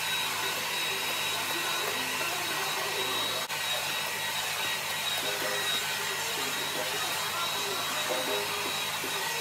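Handheld hair dryer blowing steadily, a rush of air with a thin high whine over it, drying a child's freshly washed hair.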